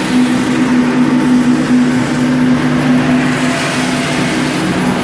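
Ruwac industrial vacuum system running steadily: a constant motor hum over a rush of air.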